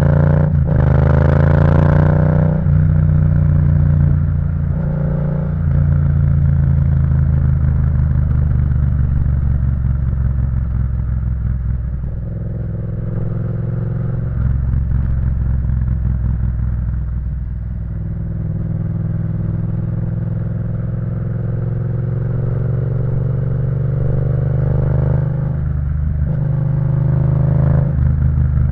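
Yamaha MT-07's parallel-twin engine with a full aftermarket exhaust system, ridden hard. It rises in pitch and breaks off for a few quick upshifts in the first few seconds, runs at a steadier pitch through the middle, then climbs again with more shifts near the end.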